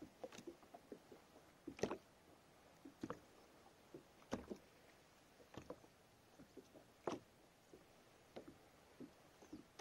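Small waves lapping against a plastic fishing kayak's hull: soft slaps and knocks, a stronger one roughly every second and a bit, with small ticks between.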